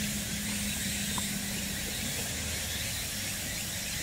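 Steady outdoor background hiss with a low, steady hum that stops about two seconds in.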